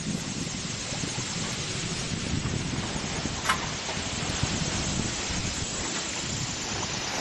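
Steady rush of wind buffeting the microphone aboard a sailboat under sail, with one short click about three and a half seconds in.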